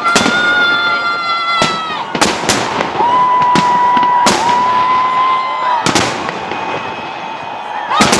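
Fireworks salute: sharp bangs of bursting shells, several in quick succession, with long, steady high whistles between them that drop away at their ends.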